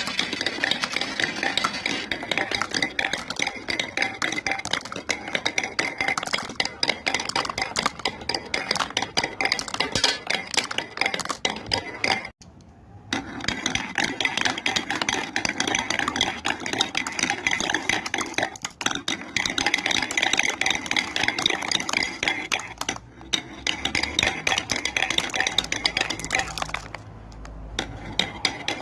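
Marbles rolling and clattering down a marble run of wooden building blocks: a dense, continuous rattle of small clicks and clinks, broken by brief pauses about twelve and twenty-three seconds in.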